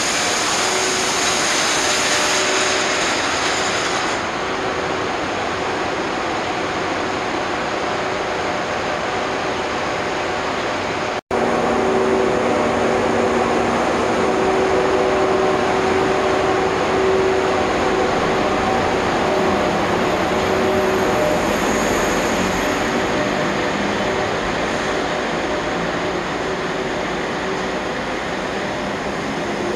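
Twilight Express sleeper train behind an EF81 electric locomotive moving slowly along a covered station platform: steady rumble of wheels on rail and locomotive running noise with a few steady humming tones. A hiss sits over it for the first few seconds, and the sound drops out for an instant about 11 seconds in.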